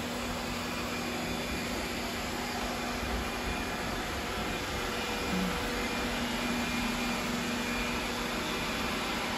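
Robot vacuum cleaners running on a hardwood floor: a steady whir from their suction motors with a constant low hum underneath.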